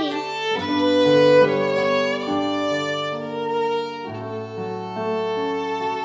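Slow background music led by violin, long held notes sounding together and changing about every second.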